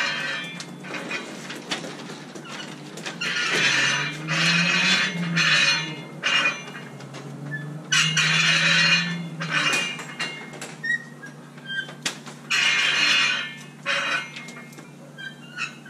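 Squeaks from a long-handled roller pushed back and forth over a flat plastic sewer-pipe liner wetted with epoxy, several drawn-out squeaks of about a second each.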